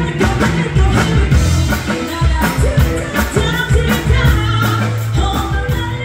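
Music with singing over a steady drum beat.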